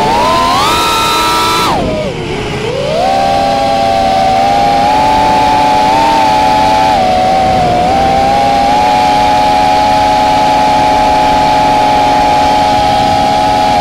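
Whine of the electric motors and propellers of a low-flying FPV model aircraft. The pitch climbs, dips sharply about two seconds in as the throttle drops, then climbs back and holds nearly steady with small wobbles.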